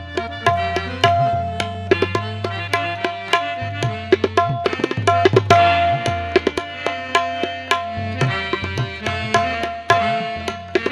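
Qawwali instrumental passage: harmoniums sounding a melody over held notes, with hand drums beating a fast, busy rhythm.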